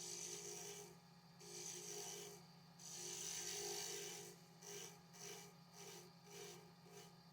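Rasping, abrasive strokes on willow wood, as in sanding or filing a pen blank: three long strokes, then quicker short ones about two a second, over a steady low hum.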